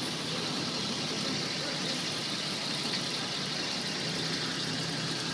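Steady street traffic noise, with vehicle engines running and no distinct events.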